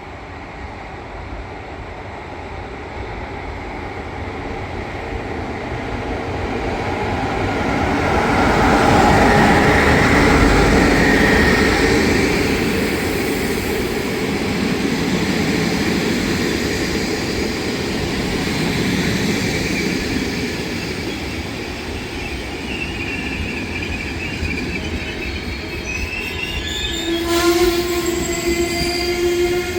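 A train running through the station, its rumble building to its loudest about ten seconds in and staying loud. Near the end a steady pitched tone, a wheel or brake squeal or a horn, sounds for two or three seconds.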